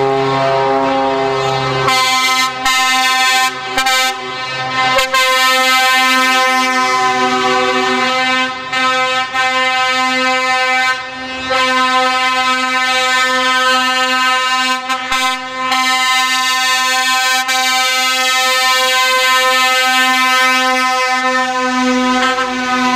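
Truck air horns sounding almost without pause, several steady tones overlapping, with a few short breaks in the first half.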